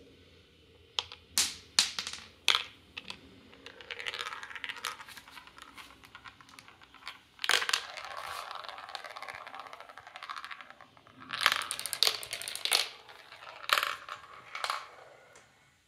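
Marbles rolling and clattering through a plastic marble run: sharp clicks as they drop through the tubes and onto the track, and longer rattling runs as they spin around the funnels and along the chutes.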